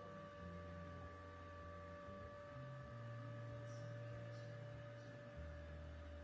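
Faint steady hum of a small 12 V DC rotisserie gear motor (5 rpm) slowly lowering an attic hatch and its folding ladder.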